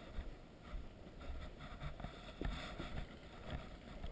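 Low, uneven rumbling noise on the microphone, with a few faint clicks and scuffs.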